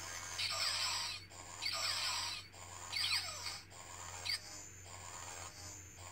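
Galaxy Tier 2 lightsaber soundboard playing clash sound effects through its small 28 mm speaker: four noisy clash bursts in quick succession over the steady blade hum, after which the hum carries on alone for the last second and a half.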